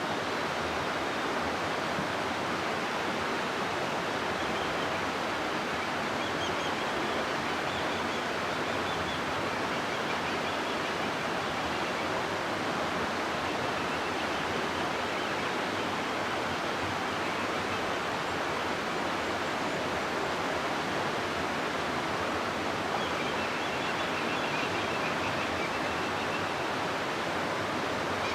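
River rushing steadily through a rocky gorge, an even, unbroken roar of flowing water.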